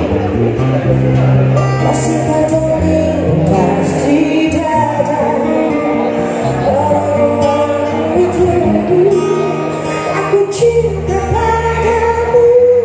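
Live acoustic pop song: a singer singing a slow melody into a microphone, accompanied by a picked and strummed acoustic guitar, heard through the PA speakers.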